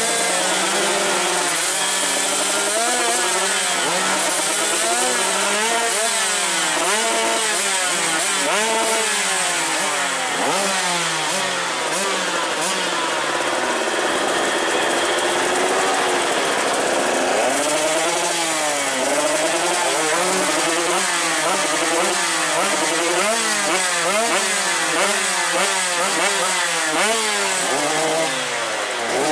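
Several motocross bikes revving at once, throttles blipped up and down over and over so their engine notes keep rising and falling across one another.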